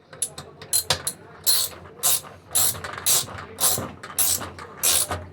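Ratchet wrench with a socket being worked back and forth to turn the screw of a puller, clicking and rasping in repeated strokes about two a second, drawing a stuck washing-machine agitator off its shaft.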